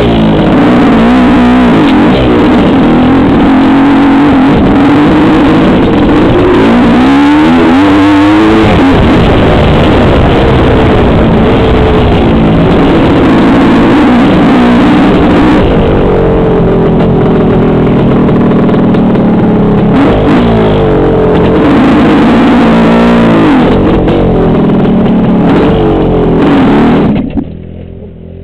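Trail motorcycle engine being ridden, very loud, its pitch rising and falling with the throttle over and over, then dropping much quieter to a steady low running near the end.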